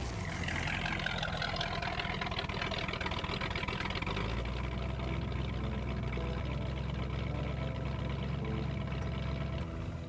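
Car engine running at a steady idle with a low engine note that gets stronger about four seconds in, from a white Pontiac Firebird Formula muscle car.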